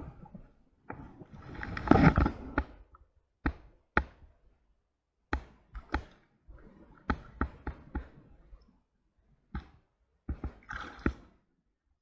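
Irregular knocks and thumps of handling on a small aluminum boat: about a dozen sharp hits, with a louder scuffle about two seconds in.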